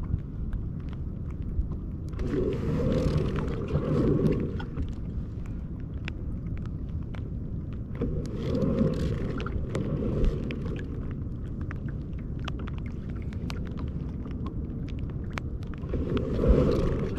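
Wind rumbling on the microphone over open water, swelling in three stronger gusts, with scattered small clicks and taps.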